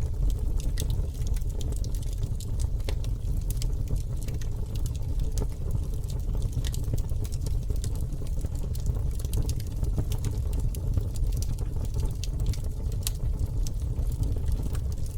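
Campfire crackling, with frequent small sharp pops and snaps at irregular intervals over a steady low rumble.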